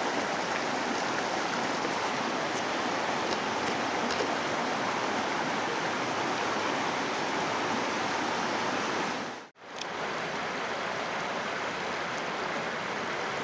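Clear, shallow stream flowing over rocks: a steady rushing of water. It cuts out for a moment about nine and a half seconds in, then the same flow carries on.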